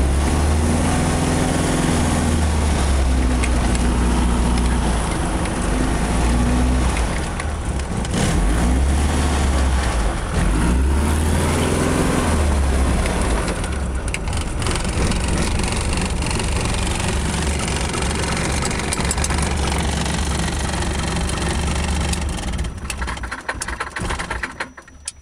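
Fournier RF 5 motor glider's engine running at low power while the aircraft taxis, heard from inside the closed cockpit, its pitch shifting a little now and then. It winds down and stops near the end as the engine is shut off.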